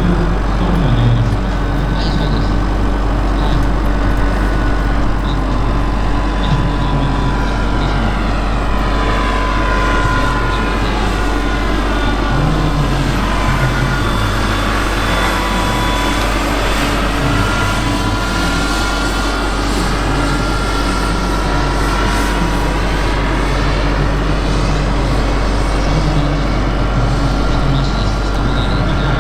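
Radio-controlled scale Bell 230 model helicopter flying, running steadily with a high-pitched tone from its motor and rotors. The sound swirls and shifts as it passes by around the middle.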